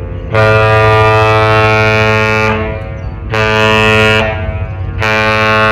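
A Great Lakes freighter's horn sounding one long blast followed by two short ones: the master's salute, exchanged between two passing lake ships.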